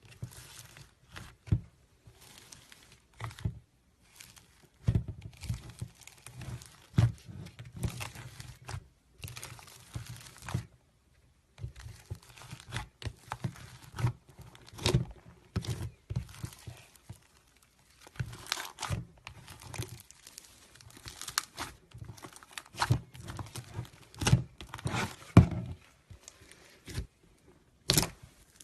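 Slime being squeezed, stretched and poked by hand, giving irregular runs of crackling and popping clicks with short pauses between them.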